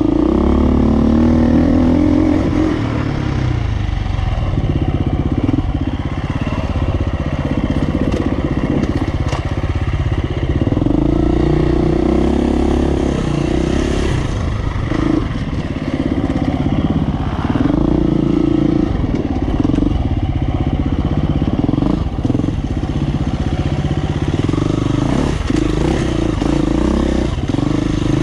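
Off-road dirt bike engine being ridden under constantly changing throttle, its note repeatedly rising on the gas and dropping off again. Occasional sharp knocks and clatter come from the bike over rough ground.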